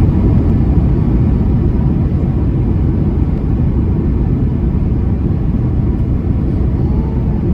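Steady low rumble of cabin noise inside an Airbus A330-300 during descent: its Rolls-Royce Trent 700 engines and the airflow over the fuselage.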